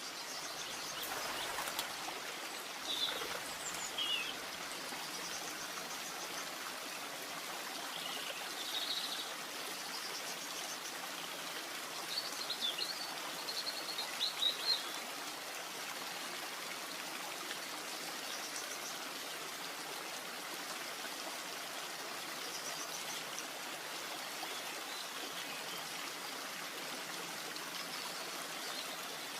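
Steady rushing water, with small birds chirping here and there over it. The busiest run of chirps comes around the middle.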